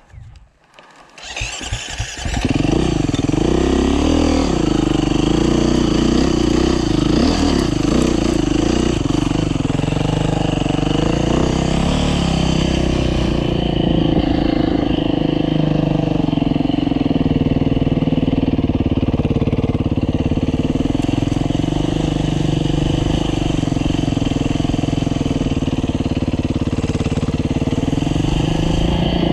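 Dirt bike engine starting about a second in, then running as the bike is ridden along a dirt trail, its pitch rising and falling with the throttle.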